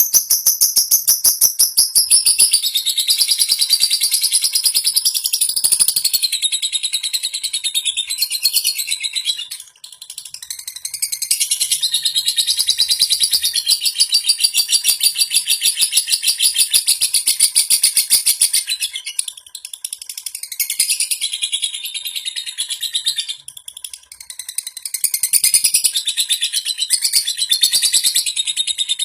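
Lovebird ngekek: long runs of rapid, high-pitched chattering notes, broken by a few brief pauses.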